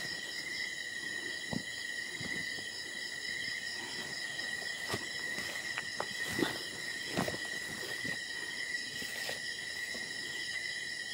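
Steady night chorus of crickets and other insects, a continuous high trill, with a few soft footsteps or crunches through the undergrowth.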